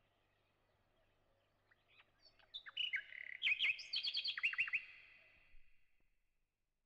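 Birds chirping: a quick run of short, high chirps and trills that starts about two seconds in and fades out near the end.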